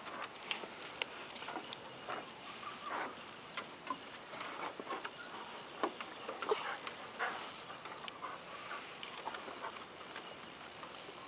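A dog's claws clicking and tapping on wooden deck boards as it walks and shifts about, in irregular taps.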